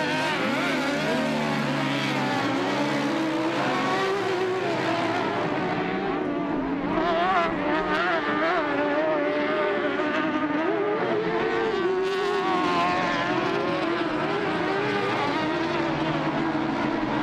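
Several UTV racing engines revving together as a pack of side-by-sides races over dirt jumps, their pitches rising and falling and overlapping without a break.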